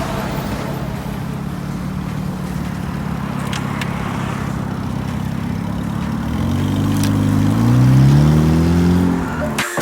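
Fiat Siena's engine running steadily, then revving up about six seconds in, the pitch climbing and falling back near the end.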